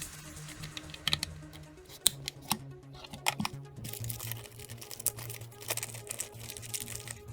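Background music with scattered sharp clicks and taps, like small plastic parts being handled and fitted.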